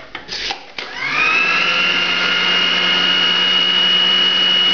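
Moulinex food processor: a few short knocks, then about a second in the motor starts with a quickly rising whine that settles into a steady high hum as it grinds garlic into flour and salt.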